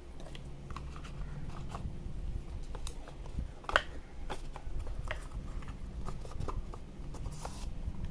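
Handling of a cardboard retail box: paperboard tapping and scraping as the inner tray is slid back into its sleeve, with one sharper knock nearly four seconds in and a short sliding rasp near the end.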